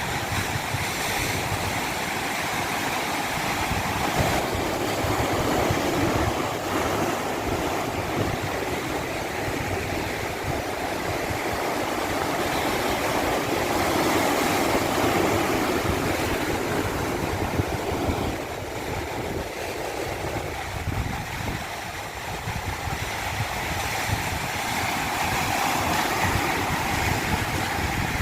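Continuous rushing water that swells and eases every several seconds.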